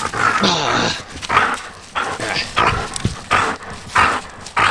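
Excited dog at play vocalising in a run of short bursts, about two a second, with a brief falling cry near the start.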